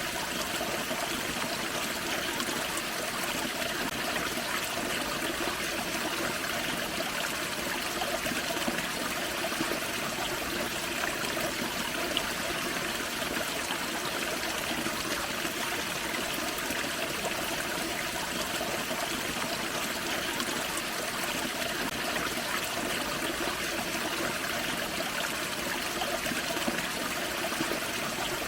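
Small forest creek splashing over a little waterfall: steady, unbroken running and trickling water.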